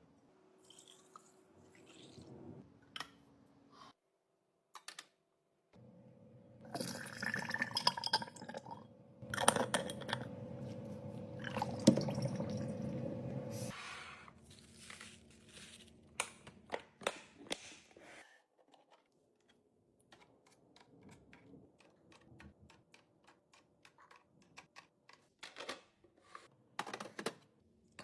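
Restocking handling sounds: bottles, containers and packaging being set down, opened and arranged, making scattered clicks, taps and rustles. A louder stretch of continuous noise in the middle sounds like liquid being poured.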